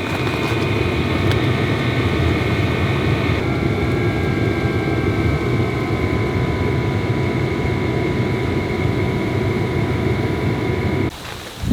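Diesel parking heater running up close: a steady rush from its blower fan and burner with a high motor whine, and no clear fuel-pump ticking, the pump being a silenced type. The sound cuts off suddenly shortly before the end.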